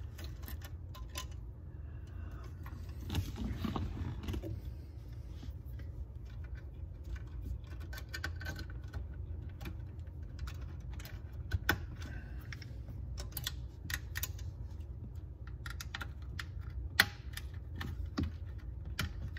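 Small clicks and light rattles of instrument-cluster bulb sockets and wiring being handled and twisted into the back of the gauge housing, with a sharper click about three-quarters of the way through, over a steady low hum.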